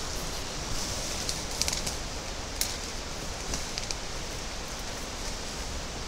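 Leaves and undergrowth rustling and swishing as people push through dense brush on foot, with a few sharp crackles of twigs and branches, over a steady hiss of wind in the foliage.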